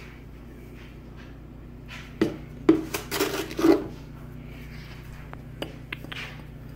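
Kitchen handling sounds of a glass measuring cup and container on a counter. About two seconds in comes a sharp knock, then about a second of clinking and scraping, and a couple of faint ticks near the end.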